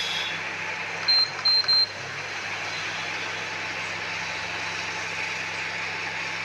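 Control-panel beeps of a Pigeon induction cooker: three short high beeps in quick succession about a second in, over a steady hiss. This is the repaired cooker being switched on and set to heat, with no E0 error now that its faulty preset has been replaced.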